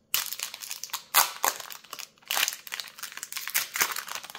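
Foil wrapper of a Magic: The Gathering collector booster pack crinkling in quick, irregular rustles as it is handled and pulled open.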